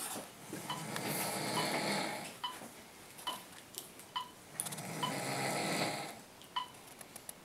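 A man snoring in deep sleep: two long snores, each about a second and a half, about four seconds apart. A faint tick repeats a little more than once a second.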